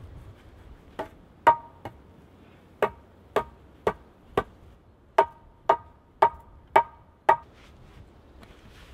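About a dozen sharp wooden knocks with a short ringing note, in runs of three, four and five at about two a second. A birch pole is being knocked into place on a wooden fire-reflector frame.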